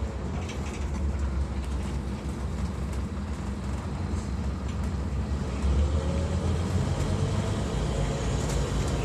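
Scania N230UD Omnicity double-decker bus heard from the upper deck: its 9-litre five-cylinder diesel engine and drivetrain make a steady low drone with light interior rattles. About five or six seconds in, the engine note rises and grows louder as the bus accelerates.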